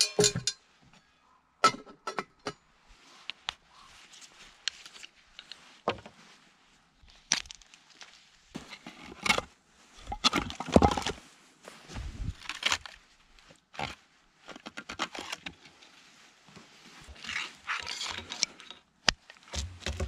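Irregular knocks, cracks and scrapes of camp work: a metal pot handled on a wooden picnic table and a knife cutting into split firewood. The heaviest knock comes about halfway in.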